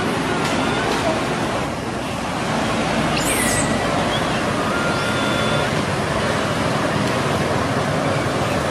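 Steady rushing background noise with a few short whistled calls over it, one sweeping up and falling back about halfway through.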